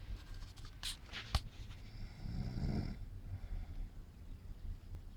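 A man snoring in his sleep: one long snore about two seconds in, lasting about a second, over a steady low hum. A few short clicks come about a second in.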